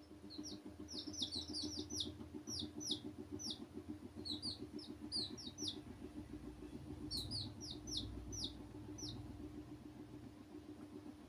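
Young chicks peeping in quick runs of short, high, falling cheeps that stop about nine seconds in, over a steady low hum.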